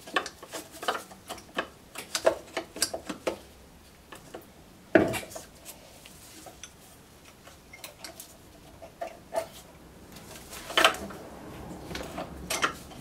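Light metallic clicks and taps of a Mountfield RV150 carburetor and its throttle linkage springs being worked back onto the engine by hand, with a sharp knock about five seconds in and a louder clunk near the end.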